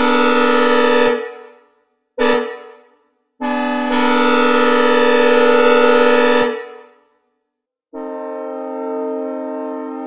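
Synthesized recreation of a Nathan K5CA-LS five-chime locomotive air horn, sounding a chord in blasts: one cut off about a second in, a short blast, then a longer blast of about three seconds, each fading away in reverb. Near the end a quieter, steady horn chord of a different tone starts and holds.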